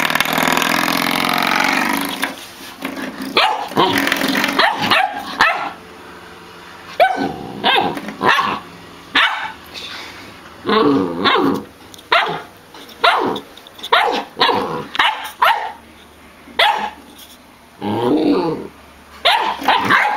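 Samoyed puppy barking and growling in a run of short barks, about one a second.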